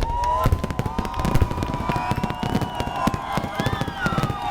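Fireworks display going off: many bangs and crackles in quick succession, with steady whistle-like tones and a falling glide over them.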